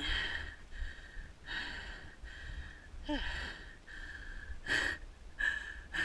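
A person breathing hard, with quick breaths in and out repeating about every second or less.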